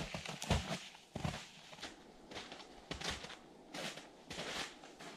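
Hiking-boot footsteps crunching on thin old snow, pine needles and twigs, loud for the first second and then fading to faint, evenly spaced steps as the walker moves away.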